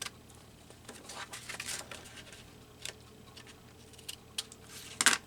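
Paper cutouts being handled on a work table: intermittent soft rustles and small taps, with one louder brief rustle near the end.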